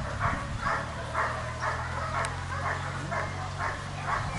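A dog barking over and over, about two to three barks a second, with a low steady hum underneath.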